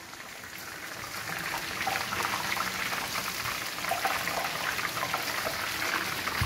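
Raw nendran banana slices deep-frying in hot oil in an iron kadai, a steady sizzle that grows louder over the first couple of seconds as fresh slices drop in.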